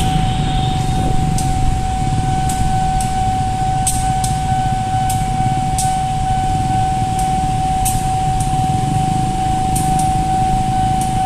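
Street traffic waiting at a closed railway level crossing: motorbike and bajaj engines idling as a steady low hum, with a steady high tone throughout and scattered light clicks.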